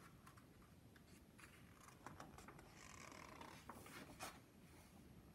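Faint paper rustling and a few light clicks as a large picture-book page is turned, loudest about four seconds in.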